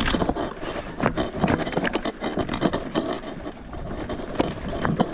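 Eskute Netuno Pro electric mountain bike clattering over a rough, rocky trail: a dense, irregular run of rattles, clicks and knocks from the drivetrain, chain and fittings as the wheels hit bumps.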